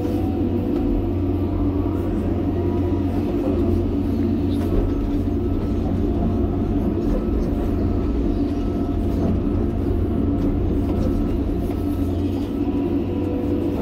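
John Deere 350G excavator's diesel engine and hydraulics, heard from inside the cab: a steady low rumble with a faint whine while the boom and bucket dig and swing topsoil.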